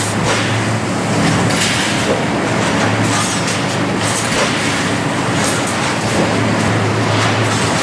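Automatic reinforcing wire mesh welding machine running, with a deep electrical hum that swells and fades as the weld heads fire. Repeated sharp clacks and metallic clatter come about once a second as the wires are fed and welded.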